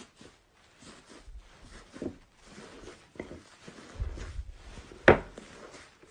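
Slime being squished and worked by hand, giving scattered soft crackles and small clicks, with one sharp, loud pop about five seconds in.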